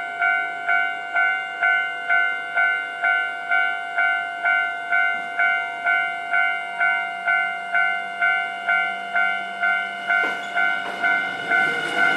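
Japanese level-crossing warning bell ringing its repeated electronic 'kan-kan' ding, a little over two strikes a second, signalling an approaching train. The train's low hum comes in partway through and its rumble swells near the end as it reaches the crossing.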